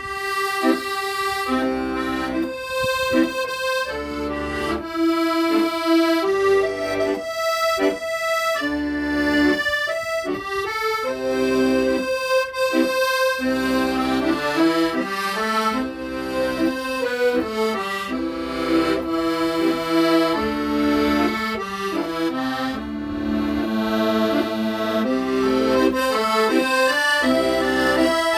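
Solo accordion playing a slow song melody over bass-button accompaniment, notes held and moving in pitch.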